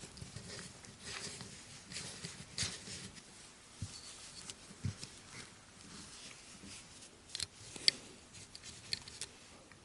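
Faint, scattered clicks and scrapes of a small Torx driver on a folding knife's pocket-clip screws as the knife is handled; the T6 bit is too small for the knife's T8 screws.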